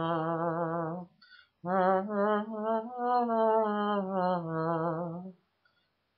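A man's voice singing a wordless melody, unaccompanied, with a heavy wobbling vibrato: a short phrase at the start, then after a brief pause a longer run of notes that stops about five seconds in.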